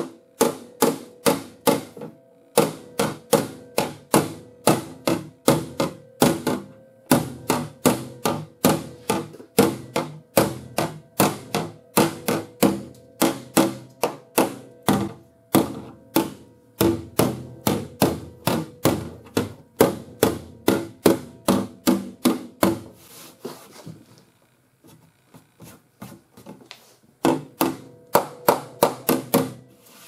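Body hammer tapping down the lapped seam of a cab corner patch panel bonded with JB Weld, in quick even blows about three a second on thin sheet steel, with the panel ringing between them. The seam is being knocked down below the surface so it can be filled, and this also tests whether the adhesive bond cracks. The blows stop for a few seconds near the end, then start again.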